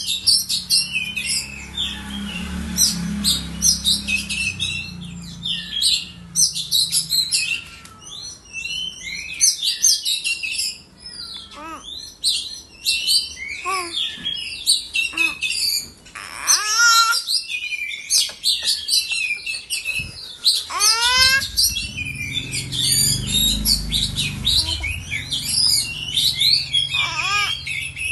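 Oriental magpie-robin song: a dense, rapid run of chirps, whistles and trills, with a few long sliding whistles about midway.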